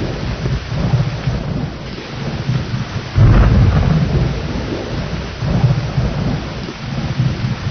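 Steady rain with rolling thunder. A deep rumble comes in suddenly about three seconds in and slowly dies away, and lesser rumbles follow near the end.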